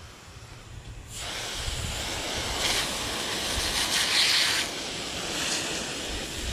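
Garden hose with an adjustable brass nozzle spraying water onto the ground: a steady hiss that starts about a second in, growing stronger for a while midway.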